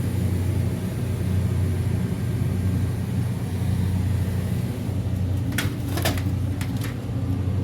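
Steady low machine hum, with a few sharp clicks or knocks between about five and a half and seven seconds in.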